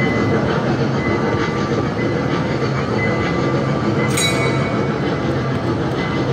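A kiddie ride train carrying children, running steadily with an even rumble, and a brief sharp click about four seconds in.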